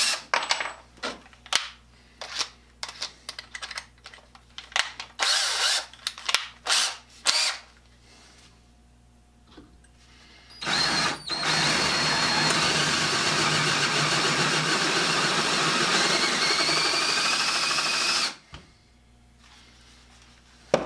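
DeWalt cordless drill boring into steel railroad iron with a reground drill bit, cutting a rounded pocket: one steady run of about eight seconds, its whine rising slightly near the end. Before it comes a string of short separate bursts and clicks from the drill being handled at the chuck.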